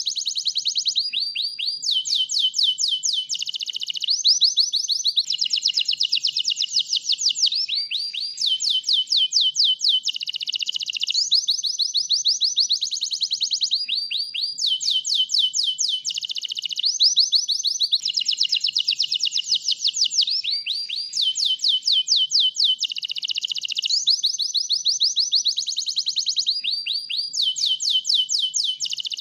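White canary singing non-stop: a long, high-pitched song of fast trills, each phrase of rapid repeated notes lasting a second or two before switching to the next, with hardly a pause.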